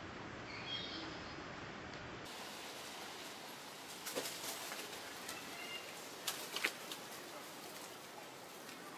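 Quiet outdoor ambience with a few faint, short high chirps, and scattered sharp clicks and crackles about four seconds in and again near seven seconds.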